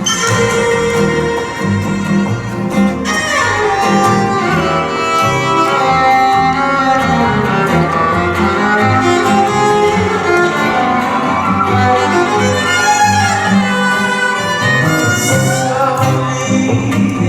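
Live jazz instrumental: a bowed violin plays a sustained, gliding melody over guitar and bass accompaniment.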